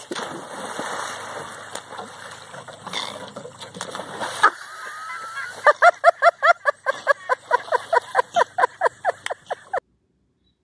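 Water splashing and sloshing as several dogs swim and thrash in a pond. More than halfway in it gives way to a loud, rapid run of short high-pitched voice calls, about four a second for some four seconds, which cut off suddenly.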